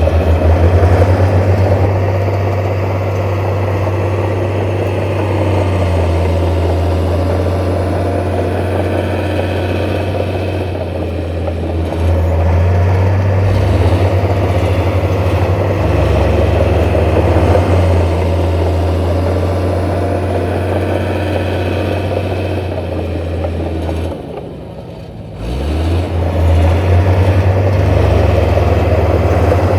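Heavy diesel engine of earthmoving machinery running steadily, with a brief drop in level near the end before it comes back.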